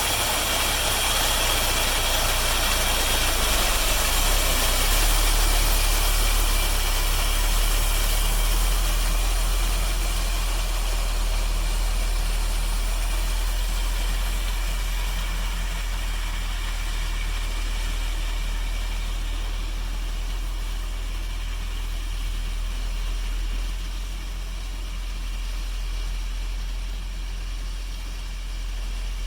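A vehicle engine running steadily at idle, with a constant deep hum that eases slightly near the end.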